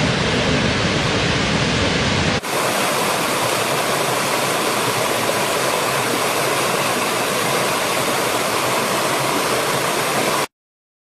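Waterfall: a steady rush of falling water. About two seconds in it cuts to another stretch of falling water with less deep rumble, and it stops abruptly near the end.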